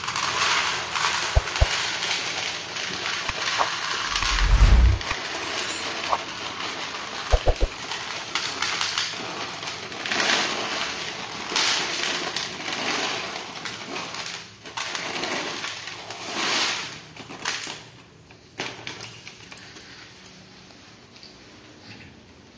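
Dry cat kibble pouring from a crinkling plastic bag and rattling onto a plastic tray, with a few dull knocks. It dies down about eighteen seconds in.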